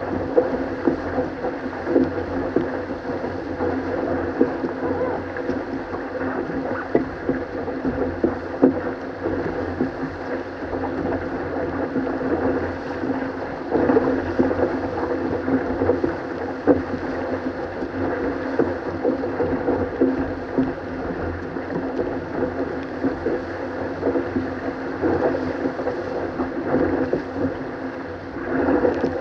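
Water rushing and splashing along a Weta trimaran's hull and float as it sails fast through chop, with spray striking at irregular moments on top of a steady rush.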